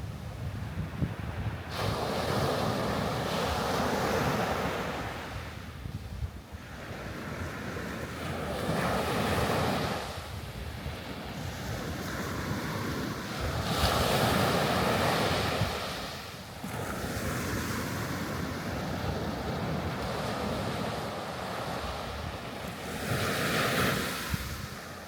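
Sea waves washing ashore, a hiss that swells and fades every few seconds, with the loudest surges about three, nine, fourteen and twenty-three seconds in. Wind buffets the microphone with a steady low rumble underneath.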